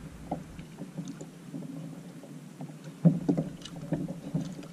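Water lapping against a plastic fishing kayak's hull, with small irregular knocks of gear and hull. The knocks are sparse at first and come more often from about three seconds in.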